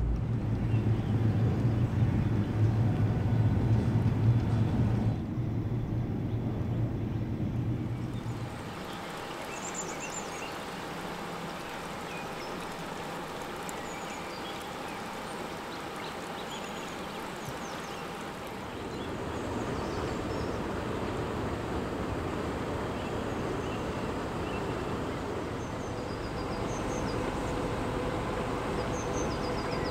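A narrowboat's engine running with a steady low drone, which drops away about eight seconds in, leaving steady outdoor ambience with birds chirping now and then.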